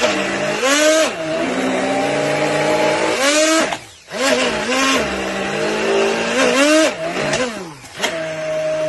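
Hand-held immersion blender running in a tall plastic beaker of thick apple-and-camembert cream. Its motor pitch sags and climbs again several times as the blade works through the mixture, and it cuts out briefly about four seconds in before running on.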